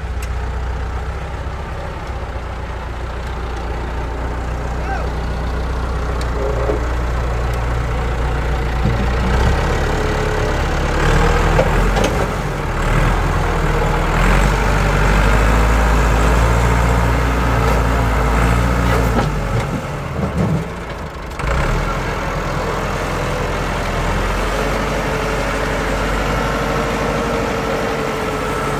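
ITM 285 tractor's diesel engine running as its front loader digs and lifts soil. It works harder and grows louder through the middle, drops briefly about two-thirds of the way through, then settles back to a steady run. A few sharp knocks sound around the middle.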